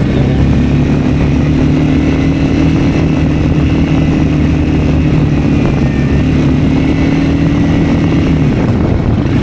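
Honda CRF250L's single-cylinder engine running steadily under way at a cruising pace, its note shifting about eight and a half seconds in.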